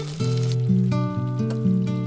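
Background music: an instrumental piece of held notes that change every fraction of a second.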